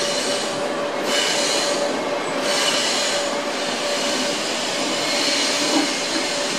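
Double-deck passenger coaches of an InterCity train rolling past on the rails: a steady rumble and rush of wheels on track, with a faint steady high tone running through it.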